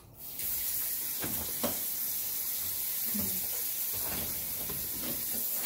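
Steady rushing hiss of water in a kitchen, starting suddenly a moment in and holding even, with a couple of faint clinks about a second and a half in.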